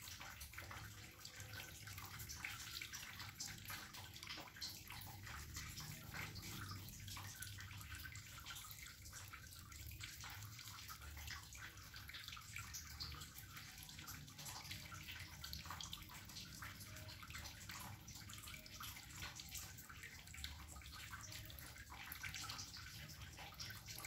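Faint rubbing and many small sticky clicks of soft cookie dough being rolled and shaped between bare hands, over a low background rumble.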